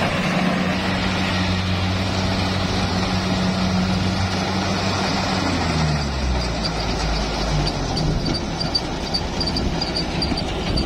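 Kubota DC-70 combine harvester running while harvesting rice: its diesel engine and threshing machinery make a steady hum, and the engine note drops lower about six seconds in. A faint, fast, regular ticking joins in the second half.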